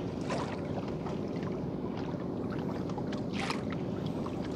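Steady low rumble of a small fishing boat on the river, with two faint short knocks or splashes, one about a third of a second in and a brighter one about three and a half seconds in.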